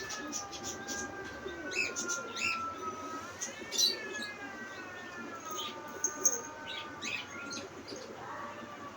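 Kitten meowing in long, drawn-out cries that slowly rise and fall in pitch, the second starting about three seconds in, with short chirps of small birds over it.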